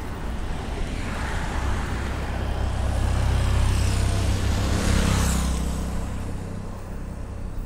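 A motor vehicle passing along the road close by: engine hum and tyre noise swell over a few seconds, peak about five seconds in, then fade away.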